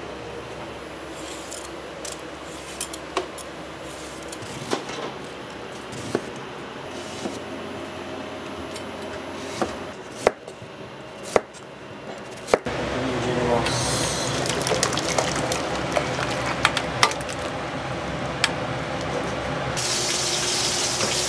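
Light clinks and knocks of kitchenware, then a kitchen tap turned on about twelve seconds in and water running steadily, turning brighter and hissier near the end.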